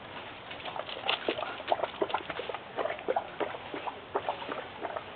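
Two puppies play-wrestling: an irregular, quick run of short scuffling sounds, paws and claws scrabbling, with small dog play noises mixed in.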